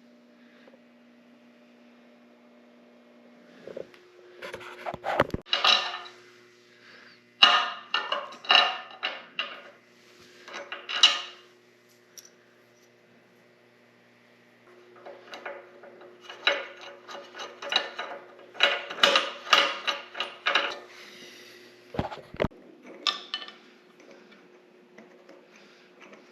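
Hand tools and metal hardware clinking and knocking in several quick runs of sharp taps, with pauses between, over a faint steady hum.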